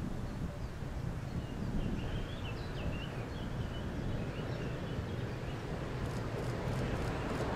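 Low rumble of an approaching freight train, a Siemens Vectron electric locomotive hauling tank wagons, still some way off and mixed with wind buffeting the microphone, with a few sharp clicks near the end. A small bird chirps several times a couple of seconds in.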